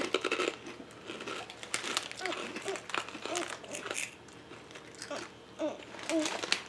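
Crinkly plastic snack bag being handled and rummaged in, rustling and crackling in irregular bursts.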